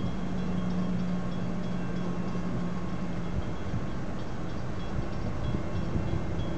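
Steady low rumble and hum of a coal train's hopper cars at a grade crossing, heard from inside a car waiting at the crossing.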